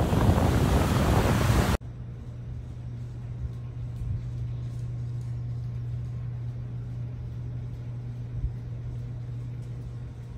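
Loud rushing wind noise that cuts off abruptly about two seconds in, giving way to a steady low mechanical drone, a vehicle engine running.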